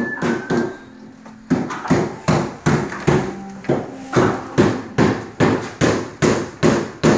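Hammering on a building site: a steady run of sharp blows, about three a second, starting about a second and a half in and growing louder.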